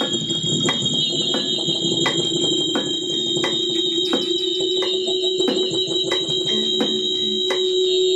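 Shrill, steady electronic feedback tones, held without a break, with a lower sustained tone under them. Scattered drum and cymbal strikes sound irregularly underneath, part of a free-improvised feedback-and-drums piece.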